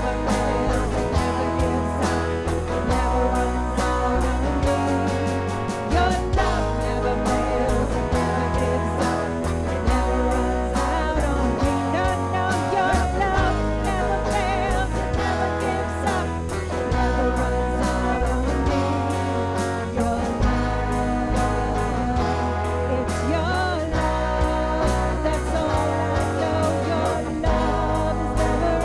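Praise and worship band music: electric guitar over a bass line that moves in steps, with a voice singing the melody.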